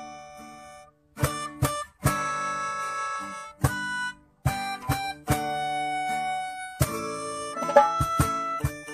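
Instrumental background music: held chords that start sharply and ring out, with short plucked notes and brief pauses between them.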